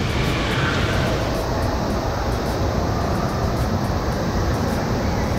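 Steady rush of water churning through a water slide's runout lane.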